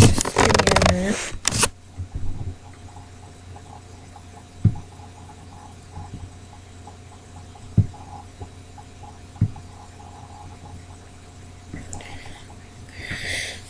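Rustling and bumping as someone shifts around on a bed and handles the webcam, then a quiet room with a steady electrical hum broken by three soft low thumps, and more rustling near the end.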